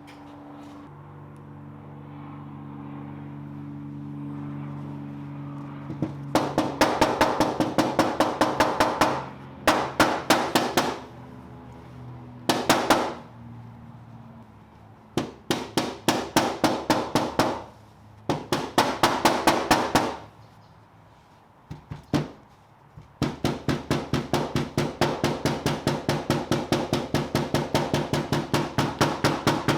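A body hammer tapping the sheet-metal fender of a car in quick runs of sharp taps, about four or five a second, with short pauses between runs. This is paintless dent repair, knocking down high spots along the body line. A steady low hum comes first, before the tapping starts about six seconds in.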